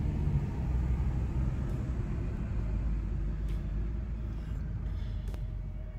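A car being driven, its engine and tyre rumble heard from inside the cabin. The low rumble is steady and fades a little toward the end.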